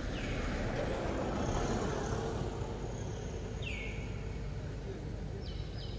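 A vehicle passing on the road, its noise swelling to a peak about a second and a half in and then fading away. A few short, high calls, each dropping in pitch, sound over it: one at the start and several in the last half.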